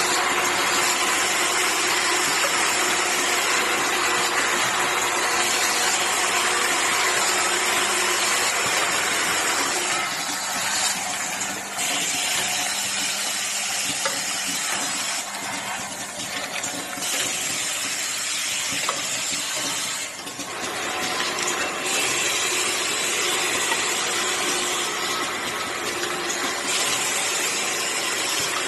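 Automatic aerosol-cap assembly machine running: a steady mechanical din with a strong hiss and a faint hum. From about ten seconds in, the hiss drops away and comes back several times.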